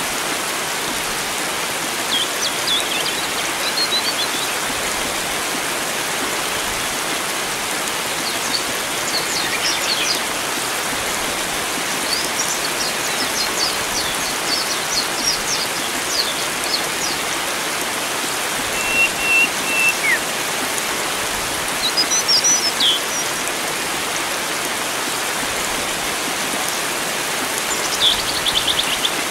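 Steady rush of flowing water with wild birds chirping in short bouts over it: twittering about two seconds in, around ten seconds, from twelve to sixteen seconds, near twenty and twenty-two seconds, and again near the end, with one brief thin whistled note shortly before twenty seconds.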